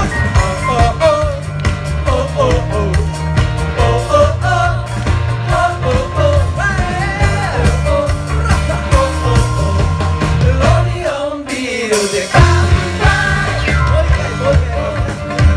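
Live band playing an upbeat song with group singing, electric guitars, bass and drums. The bass and drums drop out briefly about eleven seconds in, with a falling slide, then the full band comes back in.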